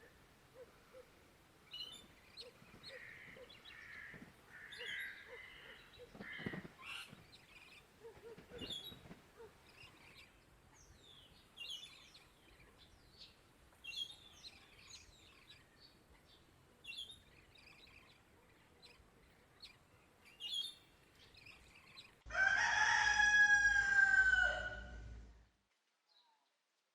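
Small birds chirping on and off, then a rooster crows once, loud and about three seconds long, near the end.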